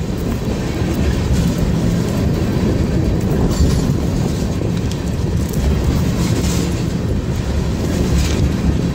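Freight train of tank cars rolling past close by: a steady, loud low rumble of steel wheels on the rails, with a few brief sharper rushes of higher noise along the way.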